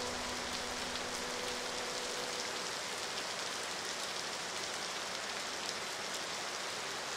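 Steady rain falling, a continuous even hiss of drops. The last notes of a piece of music fade out in the first second or two.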